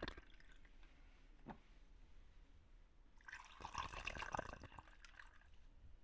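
Iced coffee poured from a glass carafe into a glass of ice cubes: liquid trickling and dripping, with a light click about a second and a half in and a second, fuller pour for about two seconds past the middle.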